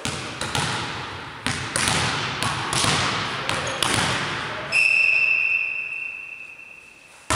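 A volleyball being bounced on a sports-hall floor, sharp smacks roughly twice a second ringing in the hall. About halfway through, a steady high whistle starts suddenly and fades away over a couple of seconds: the referee's whistle signalling the serve.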